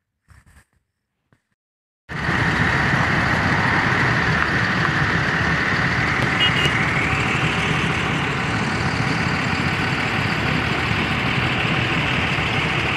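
Near silence for about two seconds, then steady road traffic noise starts abruptly: cars, motor scooters and auto-rickshaws running through a busy road junction.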